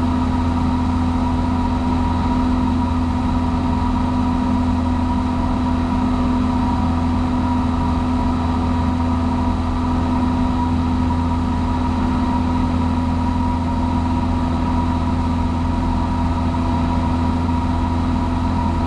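Cessna 172's four-cylinder piston engine and propeller droning steadily in the cabin during the climb after takeoff, an even hum with fixed tones and no change in pitch.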